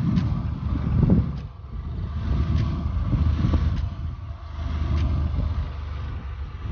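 A Yamaha FZ motorcycle's engine running while it is ridden, under a low rumble of wind buffeting the microphone that swells and eases.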